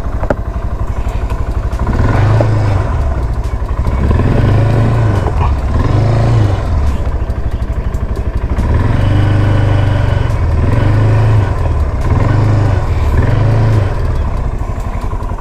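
The 176 cc engine of a GA200 ATV running while it is ridden. The throttle is opened and eased off several times, so the engine note rises and falls.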